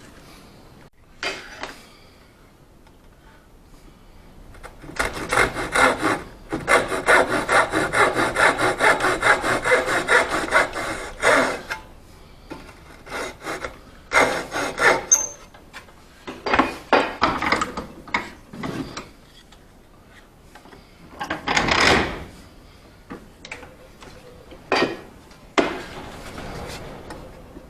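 Hand saw cutting into wood, a steady run of back-and-forth strokes for about six seconds, then shorter bursts of sawing and a few knocks, while a new tenon is being cut to its marked line.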